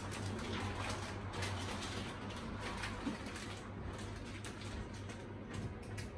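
Paper rustling and crinkling in quick, irregular bursts as a sandwich is wrapped, over a steady low hum.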